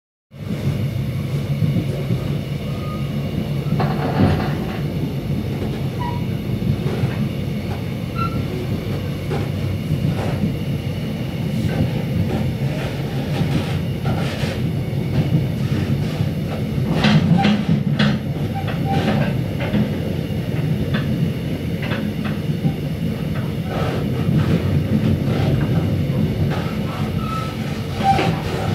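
A passenger train running, heard from inside the carriage: a steady low rumble with irregular clicks and knocks from the wheels on the track.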